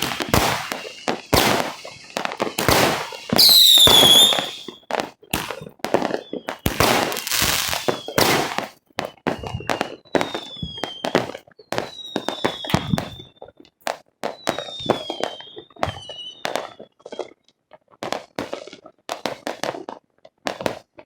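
Fireworks going off in a rapid, irregular string of sharp bangs and crackles, dense for the first eight seconds or so, then thinning out. Short falling whistles come through among them, the loudest about four seconds in.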